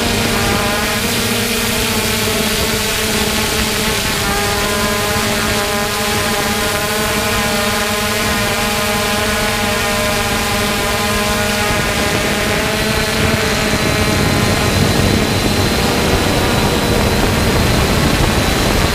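3DR Solo quadcopter's four electric motors and propellers running steadily in flight: a whine of several steady tones over a rush of air noise. About twelve seconds in, the lower tones fade into more rushing noise and a thin high tone comes in.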